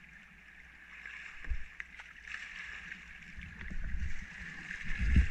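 Kayak paddle strokes splashing in the flowing creek over its steady rushing, with low thumps building near the end, the loudest about five seconds in.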